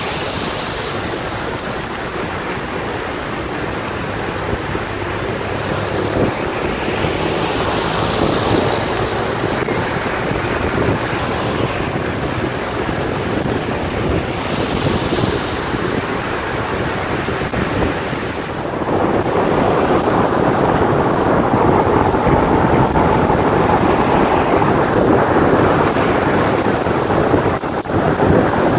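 Traffic on a wet road: tyres hissing on the rain-soaked tarmac, swelling and fading as vehicles pass, under wind rumbling on the microphone. The noise grows louder about two-thirds of the way through.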